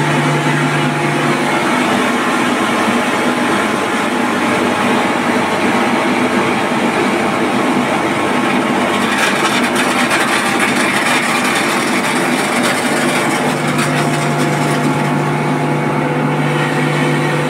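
Electric motor-driven centrifugal fire pump running: a loud, steady machine hum with several steady tones. The lowest hum drops away about a second and a half in and returns near the end.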